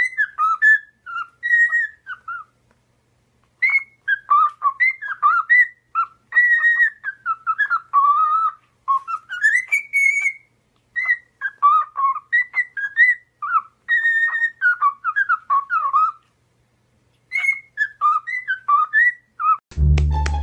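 A parrot whistling a tune in short, gliding phrases of clear notes, broken by two brief pauses. Background music comes in near the end.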